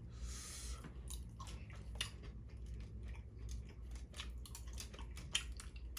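Close-up chewing and crunching while eating Dungeness crab, with many small sharp crackles scattered throughout. A short hiss comes first, in the opening second.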